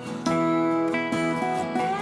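Background music: acoustic guitar playing, with notes plucked and sliding.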